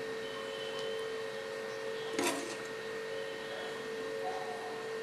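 A serving spoon knocking once against a ceramic bowl about two seconds in, as curry and eggs are ladled into it, over a steady faint electrical hum.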